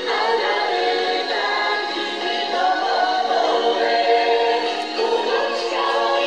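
A song with several singing voices over instrumental backing, played through a small speaker, thin with no bass.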